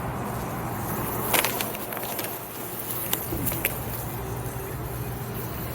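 Honeybees buzzing over a steady low hum, with a few light clicks.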